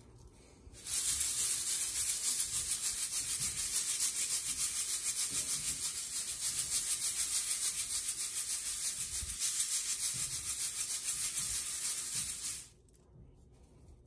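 Freshly roasted coffee beans rattling inside a Behmor 1600's wire-mesh roasting drum, shaken by hand to knock off the chaff. A dense, steady rattle that starts about a second in and stops suddenly near the end.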